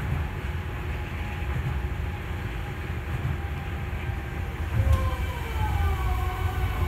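Osaka Monorail 3000-series train running along the guideway with a steady low rumble. From about five seconds in, its electric drive adds a whine that slowly falls in pitch.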